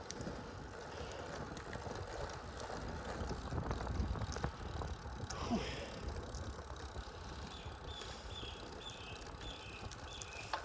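Low wind rumble on the microphone while moving along a quiet rural road. In the last few seconds a bird calls over it, repeating short high chirps about twice a second.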